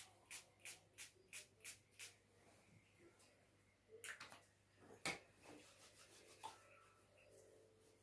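Faint rubbing of hands for hand washing, in short even strokes about three a second for the first two seconds; then a few sharper knocks, the loudest about five seconds in.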